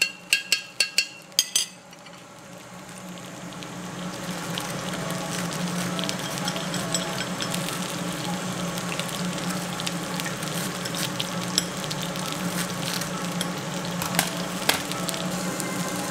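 Lamb sizzling on a hot cast-iron Hokkaido-style lamb grill: a steady frying hiss that swells in over the first few seconds. A quick run of ringing clicks comes right at the start, and a couple of sharp clicks come near the end.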